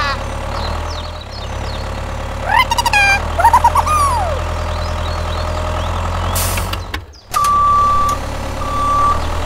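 Tractor engine running steadily, with a few high, gliding squeaks from about two and a half to four seconds in. After a brief dropout near seven seconds, a reversing beeper sounds twice in long steady beeps as the tractor backs its trailer up.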